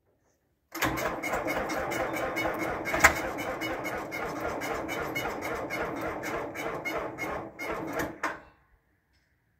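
John Deere 4450's turbocharged six-cylinder diesel being started from cold, turning over in an even rhythmic chug of about four to five beats a second, with one sharp click about three seconds in. The sound cuts off suddenly near the end.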